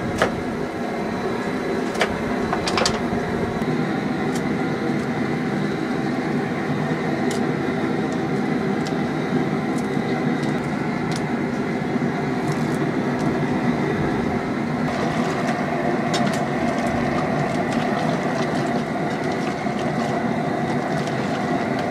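A steady machine drone with several held tones in it, broken by occasional sharp clicks and knocks, the loudest three within the first three seconds.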